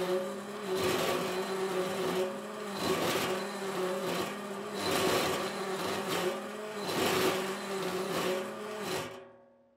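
Homemade stainless-steel plastic shredder running empty, its electric motor and gearbox humming under a harsh grinding that swells about once a second and dies away near the end. It is a very bad sound of heavy friction: the blades are rubbing on the fixed pieces, gouging grooves in the stainless parts and deforming the blade tips.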